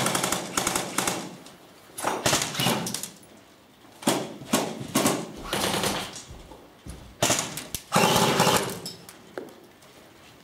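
Airsoft rifles firing on full auto: several short bursts of rapid shots with quieter gaps between them.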